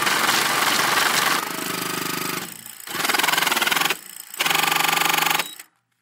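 Money counting machine running: its motor hums while the notes feed through in a fast, fine rattle. It goes in three runs separated by two short pauses, then stops about half a second before the end.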